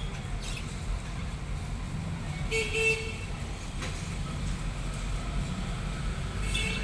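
A lovebird gives a short, high-pitched chirp about two and a half seconds in, and another starts near the end, over a steady low background rumble.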